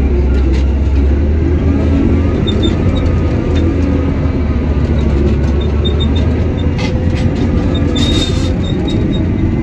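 Komatsu D65 crawler dozer's diesel engine running steadily at working speed, heard from inside the cab as a heavy low drone. Short metallic squeaks and clanks from the steel tracks come through, bunched together near the end.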